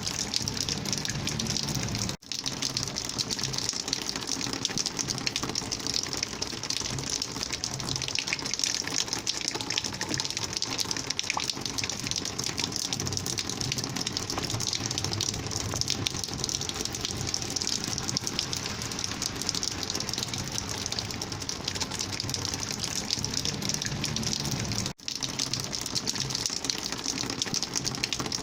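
Rainwater flowing and gushing in a steady rush. The sound cuts out for an instant twice, about two seconds in and near the end.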